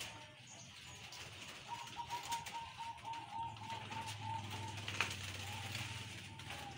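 Zebra doves (perkutut) cooing from their breeding cages: a quick, even string of short high coos that starts about two seconds in and runs on for several seconds.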